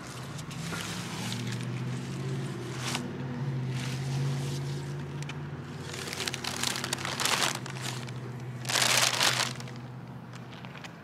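Plastic sheeting and a plastic trash bag crinkling in several bursts as a wet plastic sheet is picked up and stuffed into the bag, the loudest burst about nine seconds in. A low engine hum runs steadily underneath and fades near the end.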